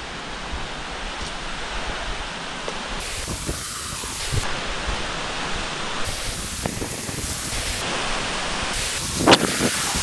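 Steady rushing outdoor noise from a nearby waterfall or wind on the microphone, with a few soft footsteps on a stony path. One short, sharp sound comes near the end.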